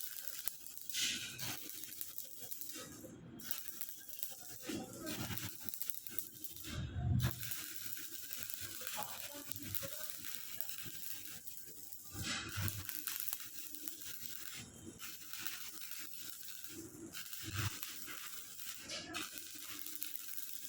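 Electric arc welding crackling and sizzling steadily, breaking off briefly a few times, with a louder low thud about seven seconds in.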